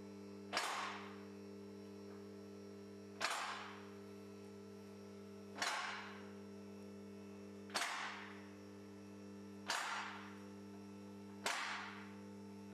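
Strongman Clifton scissor lift raising a car: the lift's motor hums steadily while six sharp metallic clacks ring out, about two seconds apart and coming slightly closer together. The clacks are the ratchet safety locks clicking over as the platforms climb.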